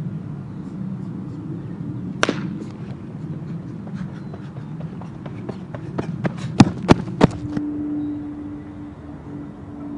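A baseball bat striking the ball about two seconds in, followed by a run of light quick ticks and three louder sharp cracks around seven seconds in, over a steady low background rumble.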